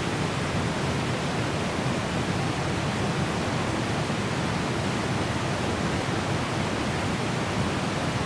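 Small but strong waterfalls heard from a medium distance: a steady, even rush of falling water.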